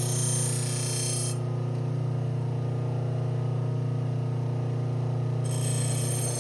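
Motor-driven leather stropping wheel running with a steady hum, while a chef's knife edge is stropped on it. A higher hiss drops away about a second in and comes back near the end.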